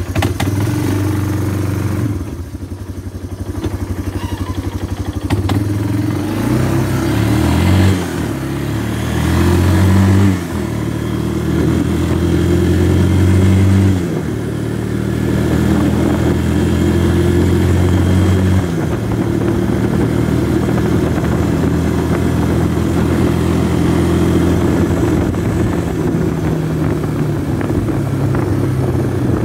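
Yamaha four-wheeler (ATV) engine running as it is ridden off. Its pitch climbs a few times as it speeds up in the first half, then drops back twice and settles into steady cruising.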